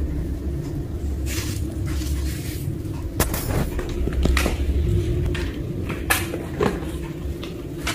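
Scattered knocks, taps and short rustles of cats batting and pouncing on toys on a tiled floor, over a steady low hum.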